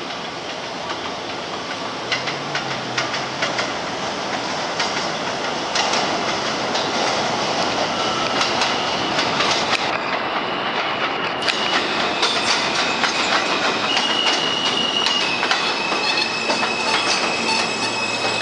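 R160B subway train pulling into an elevated station. The clatter of its wheels over the rail joints grows steadily louder as it comes in, and steady high-pitched squeals set in over the last few seconds.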